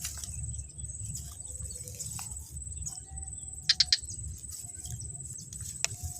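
Steady high insect trill, like a field cricket, over a low rumble. Three quick, loud, sharp chirps come close together about two-thirds of the way through, and there is a single click near the end.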